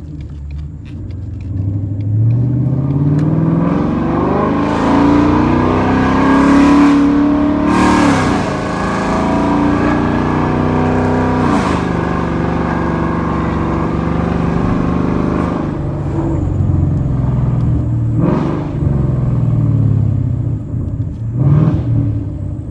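2020 Mustang GT's 5.0-litre V8 through a straight-piped MBRP cat-back exhaust, revving: the note climbs over several seconds and holds high, drops back sharply twice, then climbs and falls again a few more times near the end.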